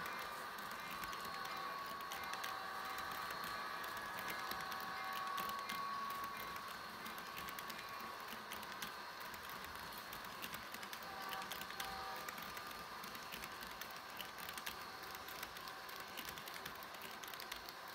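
Rapido F40PH model diesel locomotive running along model track: a quiet, dense patter of small clicks from the wheels and drive over a faint steady whine.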